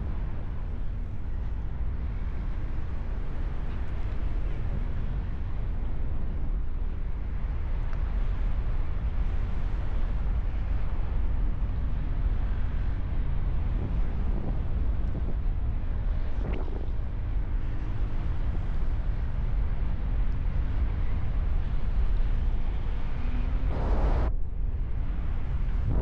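Wind buffeting the microphone of a paraglider pilot in flight: a steady low rumble of rushing air, with a brief louder burst of hiss near the end.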